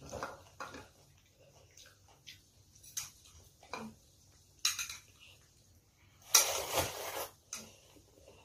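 Chopsticks clicking against ceramic bowls as ramen noodles are lifted into a small bowl, with short eating noises in between. A little past halfway comes a loud slurp from the bowl lasting about a second.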